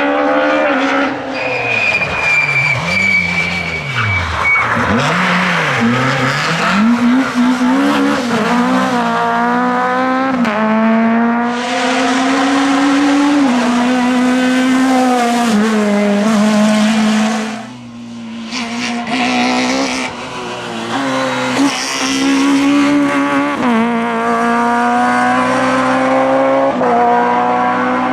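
Group F2000 rally cars with naturally aspirated engines at full attack: the engine note climbs in steps as they accelerate hard through the gears and drops back under braking and downshifts. A high tyre squeal comes early on, and a loud hiss covers the middle stretch.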